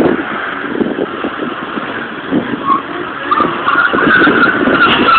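BMW E21 320i being driven hard through an autocross course: engine running under load with tires squealing, the squeal coming in short chirps from about halfway and then holding longer near the end.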